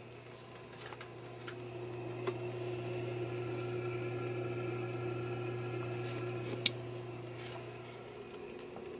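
Steady low electrical hum with fainter higher tones, swelling a little in the middle, with scattered light clicks and one sharp tick about two-thirds of the way through.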